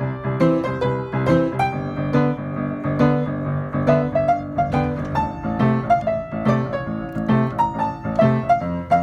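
Piano music: a melody of struck notes in a steady rhythm over a lower bass line.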